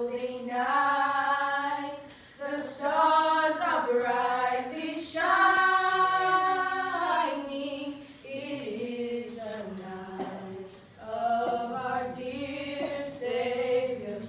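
A small group of girls singing together a cappella into handheld microphones, holding long notes that swell and fade between phrases.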